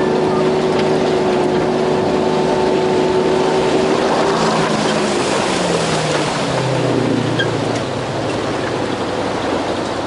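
Engine of an open off-road vehicle running under load as it drives through a shallow river, with water rushing and splashing against it; the engine note drops to a lower pitch about six seconds in.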